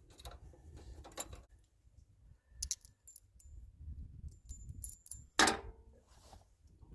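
Light metallic clinks and jingling of tiller mounting hardware being worked into place by hand on a John Deere 317 garden tractor, with one louder clank about five and a half seconds in.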